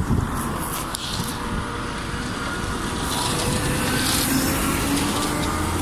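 Wind buffeting the microphone over passing road traffic, with a vehicle engine hum coming in near the end.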